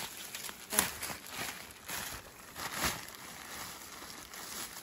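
Thin plastic shopping bag crinkling and rustling as it is handled, with a couple of sharper crackles.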